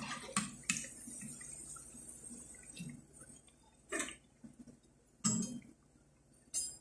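Dough twists frying in a pan of hot oil with a faint sizzle that dies away after about three seconds, and a few short knocks and scrapes of a metal skimmer against the pan as the fried pieces are lifted out, the clearest about four seconds in, just past five seconds, and near the end.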